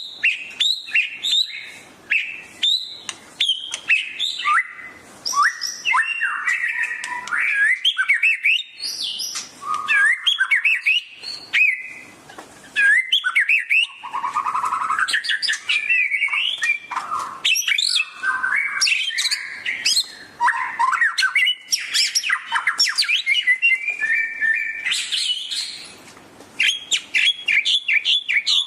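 White-rumped shama (murai batu) singing a long, varied song of rapid whistles, trills and sweeping notes, with a short lull near the end.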